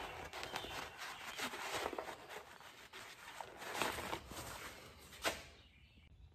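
Cloth rag rubbing and scrubbing over the engine casing around an outboard's oil-filter mount, wiping off spilled oil, with a brief knock about five seconds in; quieter near the end.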